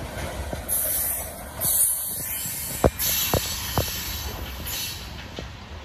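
Tank cars of a freight train rolling past, their wheels clacking over rail joints with a few sharp knocks around the middle, over a low rumble and a high hiss that comes and goes.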